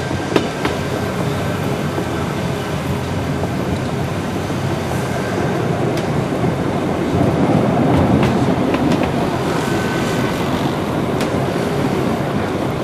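Wengernalpbahn narrow-gauge electric rack-railway train running, heard from on board: a steady rumble and rattle with scattered sharp wheel clicks, a little louder about two-thirds of the way through.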